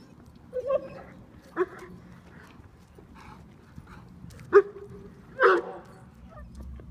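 Dog barking: four loud, short barks, two close together near the start and two more in the second half, with fainter ones in between.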